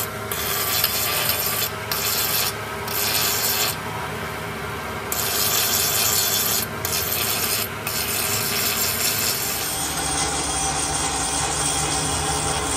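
Electric angle grinder with a thick abrasive wheel grinding the cast-iron engine block of a tractor: a continuous harsh rasp of wheel on metal. The hiss drops away briefly several times in the first half as the wheel is lifted off the metal, then holds steady toward the end.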